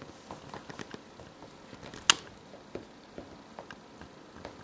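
Scattered faint taps and clicks, with one sharp click about two seconds in.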